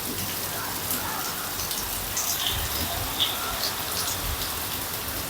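Heavy rain falling steadily, with scattered sharper drops splashing through it.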